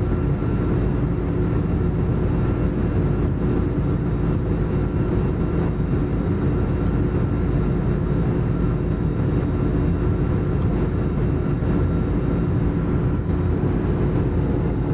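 Steady cabin drone of an Airbus A320-family jet airliner in flight, heard from a window seat: engine and airflow rush with a few steady humming tones, unchanging throughout.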